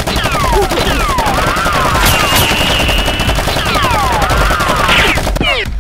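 Rapid automatic gunfire, a fast even rattle of shots, with several high whistling sounds sliding down in pitch over it; it stops abruptly near the end. It is a dubbed gun sound effect standing in for the toy blasters being fired.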